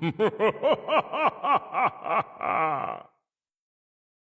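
Recorded spooky cackling laugh from a Halloween doorbell greeting: a fast run of about ten rising-and-falling "ha" calls, ending on a longer drawn-out falling note, then cut off abruptly about three seconds in.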